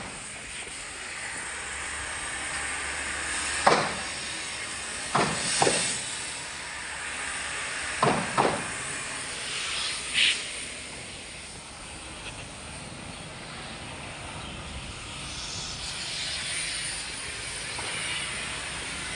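Drum wood chipper running with a steady rushing hiss, broken by several sharp cracks about four, five and a half and eight seconds in as wood is chipped.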